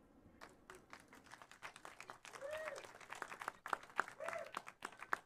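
Faint, scattered applause of many irregular claps, with two short voice sounds among them, about two and a half and four seconds in.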